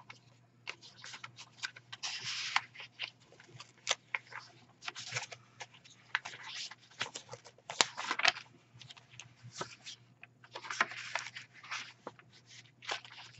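Paper pages, tags and pockets of a handmade junk journal being flipped and handled: irregular rustling with crisp paper flicks, a few of them louder.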